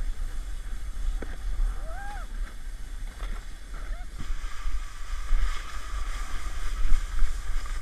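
Plastic sleds sliding down a packed snow track: a steady low rumble and hiss of the sleds scraping over snow, with a couple of short shouts from the riders in the first half. About four seconds in, the hiss of the snow gets brighter.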